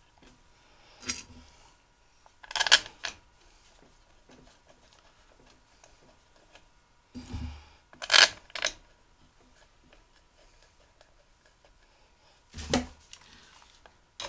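Handling noise from a kerosene forced-air heater being put back together: a few separate metal clicks and clunks, several seconds apart, as the pump end cover is set in place and its screws are started by hand.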